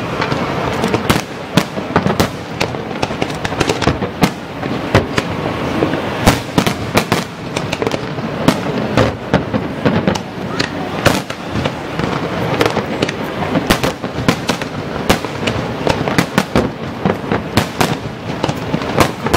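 Aerial fireworks display: a rapid, irregular barrage of shell bursts, several bangs a second at times, over a continuous dense rumble and crackle.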